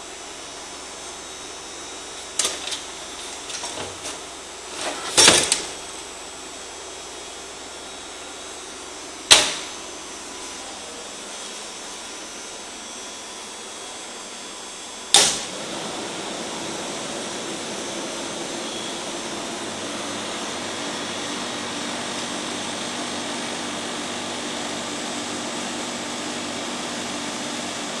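Hollow knocks of a portable dehumidifier's plastic water tank being handled and pushed into the unit, with two sharp clicks. After the second click, about fifteen seconds in, the dehumidifier runs with a louder, steady hum.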